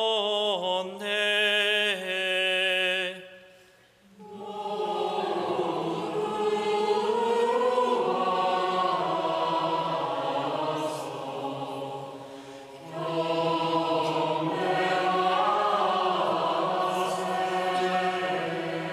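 Good Friday liturgical chant in Korean: a single male voice finishes chanting "Behold the wood of the Cross, on which hung the salvation of the world." After a brief pause about four seconds in, the congregation sings the response "Come, let us adore" in two phrases.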